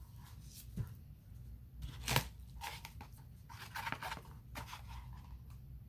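Handling noise of plastic paint bottles and a disposable-gloved hand: crinkly rustling and light clicks, with one sharp knock about two seconds in and a denser patch of rustling around four seconds.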